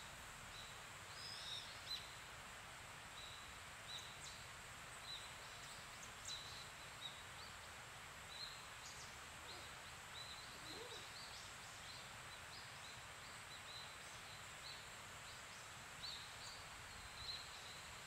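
Quiet pine-forest ambience: a faint, steady hiss with short high chirps from small birds about once a second.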